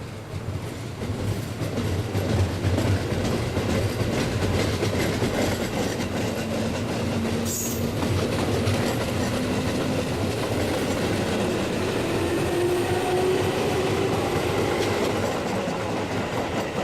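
Tobu Railway electric train running along the track, wheels clacking over rail joints, growing louder over the first couple of seconds and then holding steady. A motor whine rises in pitch over the second half.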